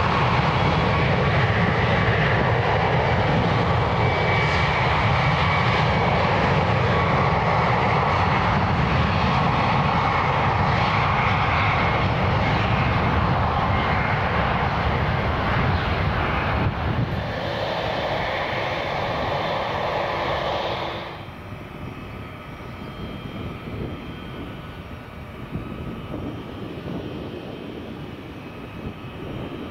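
Boeing 737 MAX 9 jet engines at takeoff power: a loud, steady jet noise with high whining tones. About two-thirds of the way through it cuts off abruptly to a much quieter jet sound of an Airbus A321 coming in to land.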